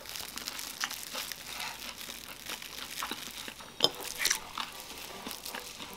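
Plastic cling wrap crinkling as it is peeled from a spinach tortilla roll: irregular sharp crackles, the loudest a little before 4 seconds in.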